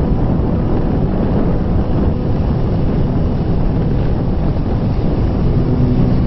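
Steady rush of wind and road noise from a moving motorcycle, with wind buffeting the microphone.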